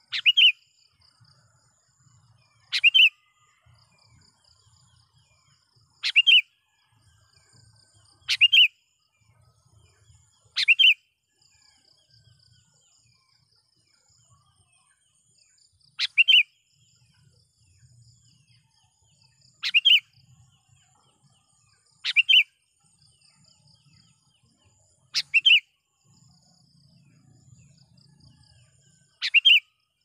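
Sooty-headed bulbul giving short, loud calls, about ten in all, each a couple of seconds apart with a longer pause midway: its calls to rivals.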